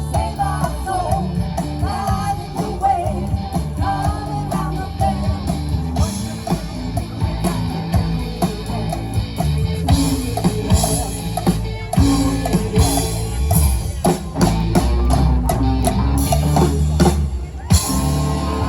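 Rock band playing: singing over guitar and drum kit, with the drums coming in harder about halfway through.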